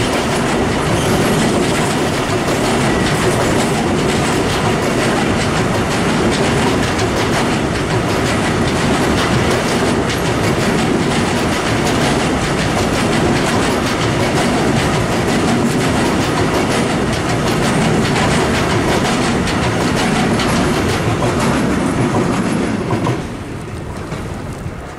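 Loaded container flat wagons of a freight train rolling past, a steady rolling clatter of wheels on the rails. The noise drops off sharply near the end as the last wagon goes by.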